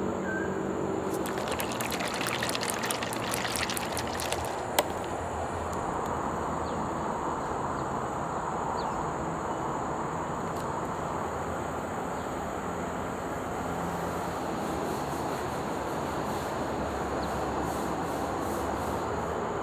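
Steady outdoor background hiss and rumble throughout. About one and a half to four and a half seconds in, a rapid run of crackling clicks, then a single sharp click near five seconds, as the plastic screw cap of a juice bottle is twisted open and its seal breaks.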